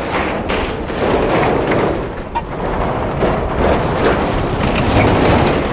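A road train of several trailers rushing past close by, with tyre and wind noise that swells and eases as each trailer goes by.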